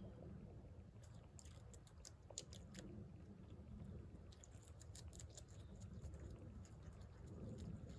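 A beaver chewing leafy branches: quick, crisp crunching bites in two runs, from about one to three seconds in and again from about four and a half to six seconds, over a faint low steady rumble.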